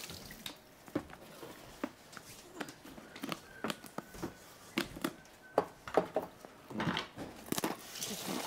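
Kitchen clatter: irregular clicks and knocks of utensils, dishes and a knife on a cutting board, with the sharpest knocks about six seconds in.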